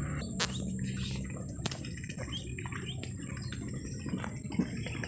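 Outdoor marsh ambience: faint scattered bird chirps over a low steady rumble and a thin high insect-like tone, with two sharp clicks in the first two seconds.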